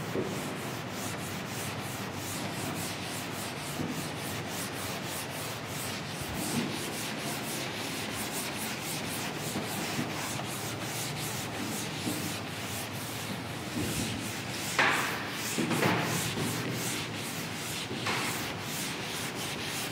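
Chalkboard being wiped with a cloth duster: steady rubbing in quick, repeated back-and-forth strokes.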